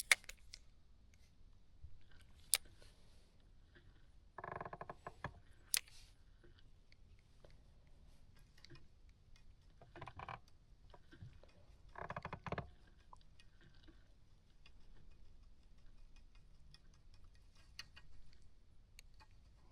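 Mostly quiet, with scattered sharp clicks and three short scraping sounds about four and a half, ten and twelve seconds in: handling noise from fishing gear.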